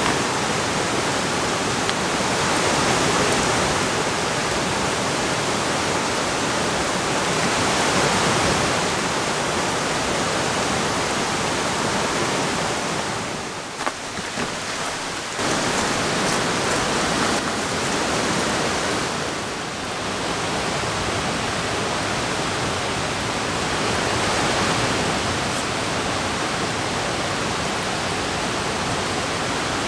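Steady rushing wash of rain and flowing river water, dipping briefly about halfway through.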